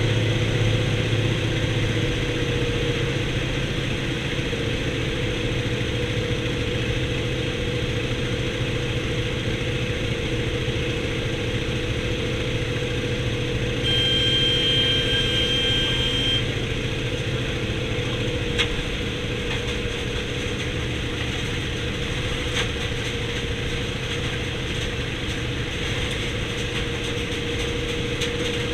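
Antonov An-2's nine-cylinder radial engine running with a steady drone. About halfway through, a high steady beep sounds for about two and a half seconds.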